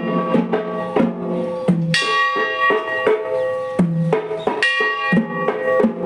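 Percussion music: a steady beat of drum strikes mixed with ringing, bell-like metallic tones.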